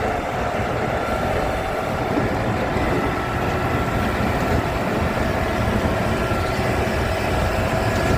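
Highline AMX850T TMR feed mixer running, driven by a tractor, with a steady mechanical noise and no pauses.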